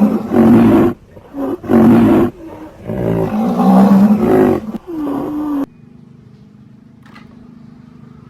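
Animal roar sound effect standing for a rhinoceros: several loud, deep roars one after another. They stop abruptly about five and a half seconds in, leaving a faint steady hum.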